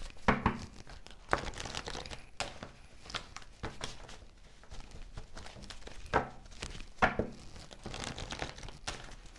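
A tarot deck being shuffled by hand: a continuous, uneven run of soft card clicks and rustling slaps.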